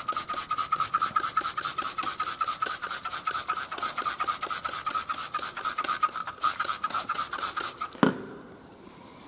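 A stiff brush scrubbing a wet, foamy rubber tyre sidewall in quick back-and-forth strokes, about seven a second, with a steady squeak from the bristles on the rubber. This is the mechanical scrubbing of a tyre being degreased with an all-purpose cleaner. The scrubbing stops with one sharp knock about eight seconds in.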